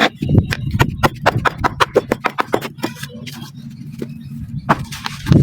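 Black sand crumbling and crunching, a dense run of sharp crackles and gritty clicks, with a heavier crunch near the end.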